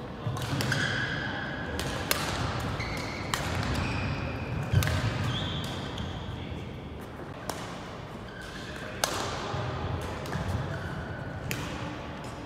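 Badminton play in a large hall: sharp racket-on-shuttlecock hits every second or two, each ringing briefly in the hall, with short squeaks of court shoes on the floor mat.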